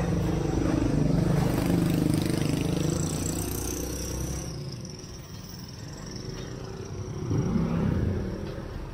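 Street traffic: a motor vehicle's engine passing close by, fading away after about four seconds, then a second engine passing near the end.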